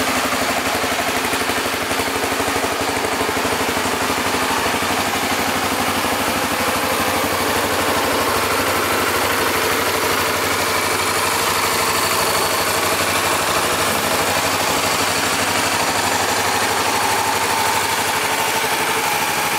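Honda CBF250's single-cylinder four-stroke engine idling steadily.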